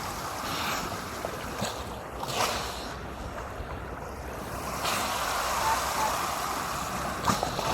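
Crabeater seals snoring in their sleep: slow, hissing breaths that swell and fade, one near the start and a longer one from about five seconds in, with a few faint clicks.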